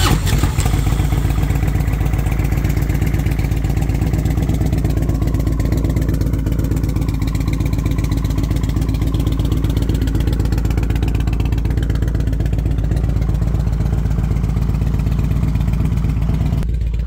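Harley-Davidson Twin Cam 88 V-twin, bored out to 100 cubic inches with an S&S kit and breathing through a ThunderHeader exhaust, idling steadily right after a cold start on ThunderMax-tuned Magneti Marelli fuel injection. It is a little louder for the first half-second after catching, then settles into an even idle, a sign that the tuned injection handles a dead cold start well.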